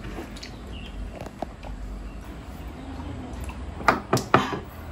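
Soft, wet eating sounds of a meal eaten by hand, with a quick cluster of three sharp smacks about four seconds in.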